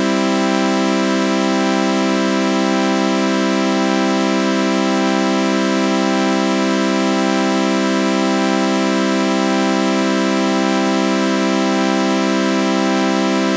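Synthesized sawtooth-wave chord with a flanger effect, held as one steady, unbroken buzzy drone. A slow flanger sweep repeats about once a second.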